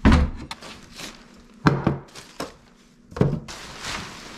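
A few dull thumps and knocks about a second apart, the loudest at the very start, with rustling and handling noise between them.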